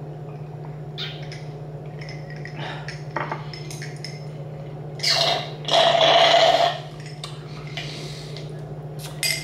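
Water being slurped through a drinking straw from a glass: two loud, noisy slurps about five seconds in, the second a little longer. There are a few faint clinks of glassware around them.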